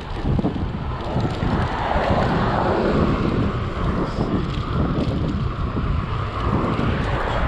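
Wind buffeting the microphone of a chest-mounted GoPro action camera on a moving bicycle: a loud, gusty rush, with a steadier hiss joining in after a second or two.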